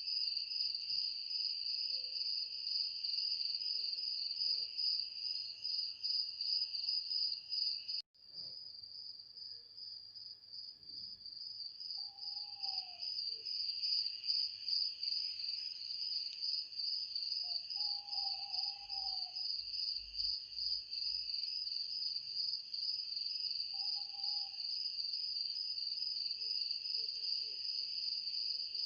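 Steady shrill insect chorus, two layers of pulsing trills, which cuts out for an instant about eight seconds in and then resumes. Faint short calls sound three times in the background.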